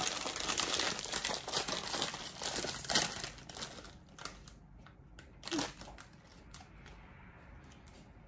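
Foil chip bag crinkling as it is opened and handled, loudest for the first few seconds with a sharp crackle about three seconds in, then quieter rustling as a hand reaches into the bag.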